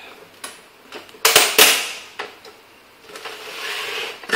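Plastic front bezel of an LG Flatron W1934S monitor being prised off by hand, its retaining clips snapping loose: two sharp cracks close together about a second and a half in, among a few lighter clicks, then plastic rubbing near the end.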